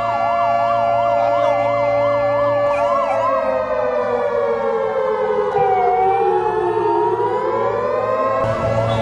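Sirens sounding an air-raid alert. A wailing warning siren holds a steady tone that sinks slowly and then climbs back up. A vehicle siren warbles fast over it at about three cycles a second, turns to a slow rising wail in the middle, and returns to the fast warble near the end.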